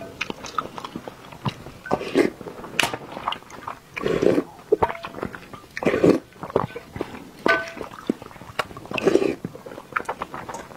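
Close-miked eating: wet chewing and mouth clicks, with about four louder slurps of broth from a spoon.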